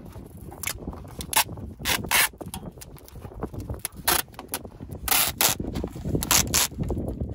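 Woven plastic sack rustling and crinkling as it is handled and fitted by hand, with irregular sharp crackles and a longer rasp about five seconds in, over a steady low rumble.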